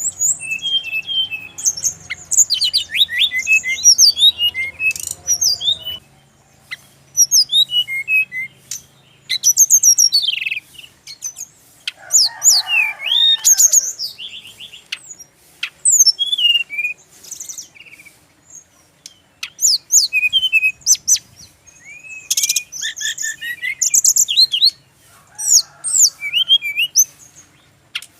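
Brown-chested jungle flycatcher singing: bursts of rapid, varied whistled chirps and sweeping notes, several seconds each, with short pauses between them.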